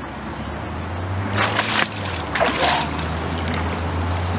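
Water splashing twice, about a second and a half in and again near three seconds in, as a person steps off a beached boat and wades through shallow river water, over a low steady hum.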